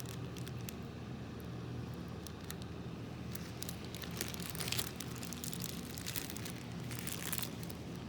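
Slime being squeezed and worked by hand, giving scattered crackles and pops with two denser crackling stretches about halfway through and near the end, over a steady low hum.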